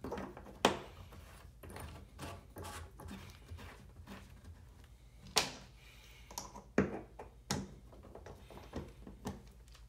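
Metal bathtub drain stopper parts and a screwdriver clicking and knocking against the drain as the stopper is put back together: a few separate sharp clicks, the loudest about a second in and three more between five and eight seconds in, with lighter ticks between.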